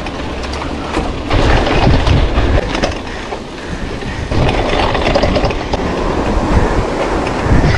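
Mountain bike rolling fast over a rough dirt and gravel road, heard from a handlebar-mounted camera: a steady clattering rattle of the bike and the camera mount shaking, with tyre and road noise.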